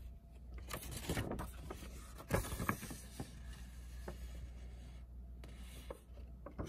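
A folded paper mailer being handled, torn open along its edges and unfolded, making scattered rustling, crackling and a few short rips, the loudest about a second in and again about two and a half seconds in.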